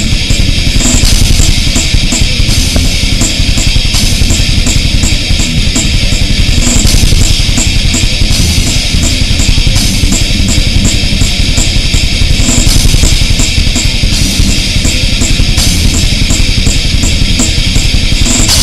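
Loud band music with a drum kit and guitar playing a steady beat, with an even, fast tick of cymbals over it.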